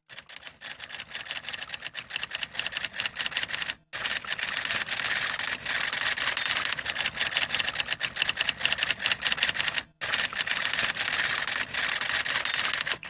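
Typewriter typing sound effect: a rapid run of key clacks, several a second, timed to text appearing letter by letter. It breaks off briefly twice, about four seconds in and about ten seconds in.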